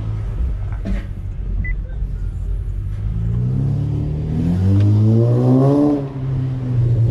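Car engine and exhaust under acceleration: a low rumble, then from about three seconds in the engine note climbs steadily in pitch for about three seconds before dropping back to a lower steady drone near the end.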